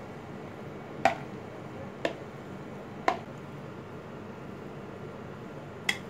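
Metal spoon knocking against the dishes as cooked tomato rice is scraped from a plastic bowl and spread in a glass baking dish: sharp clinks, three about a second apart starting about a second in and one more near the end.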